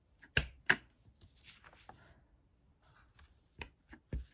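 Clear acrylic stamp block tapped onto an ink pad to ink up a rubber stamp: two sharp taps about half a second in and three more near the end, with light handling rustle between.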